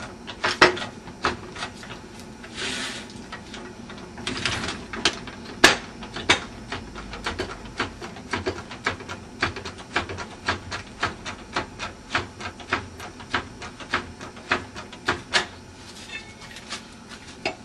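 Metal tire-changing tools clicking and knocking, settling about halfway through into a steady ratcheting click of two to three a second, as a wheel is jacked or its lug nuts are worked.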